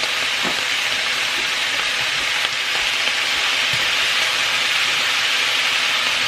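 Pork and baby potatoes sizzling steadily in a hot pan, with a few faint pops.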